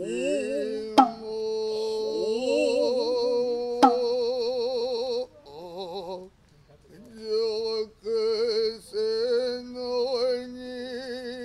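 Noh chanting (utai) in a sustained, wavering male voice, accompanied by a kotsuzumi shoulder drum that gives two sharp strikes, about a second in and about four seconds in.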